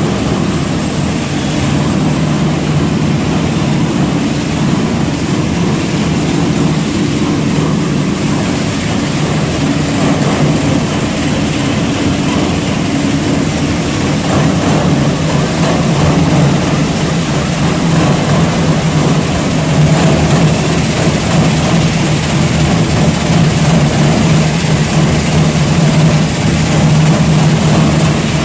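Copper shredding line running: the Bano Premac 22-70 Hydro single-shaft shredder and its conveyors make a loud, steady machine hum with a low drone, a little louder in the second half.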